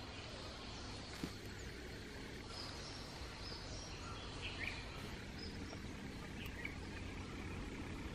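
Forest ambience: a steady background hiss with a few short, faint bird chirps scattered through it and a single small click about a second in.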